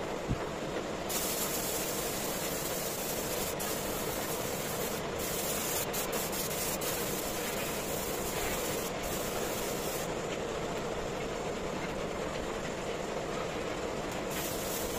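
Compressed-air spray gun hissing as it sprays finish onto a wooden cabinet, over a steady rushing air noise. The sharper hiss starts about a second in, stops around two-thirds of the way through, and comes back near the end.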